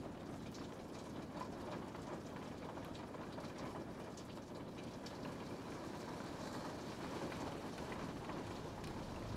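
Steady rain falling, with individual drops ticking here and there.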